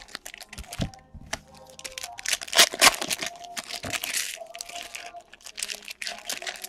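Foil trading-card pack wrappers crinkling and tearing as packs are handled and ripped open, in two long stretches of crackle starting about two seconds in.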